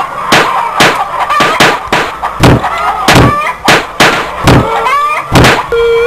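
Repeated slaps and thumps of blows in a scuffle, about two a second, some heavier and deeper than others, with people shouting and crying out between them.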